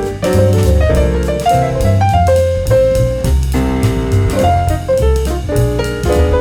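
Background jazz music with piano, a walking double bass and a drum kit keeping a steady beat.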